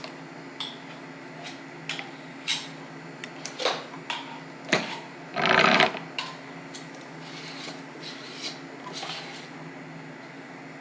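Hand-cranked apple peeler-corer-slicer being worked, with irregular clicks and knocks of the mechanism and the apple. A louder rasping noise comes about halfway through.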